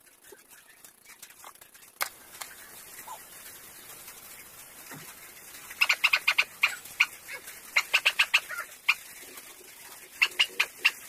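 An animal chirping: rapid runs of short, high chirps, one run starting about six seconds in and lasting about three seconds, and another near the end.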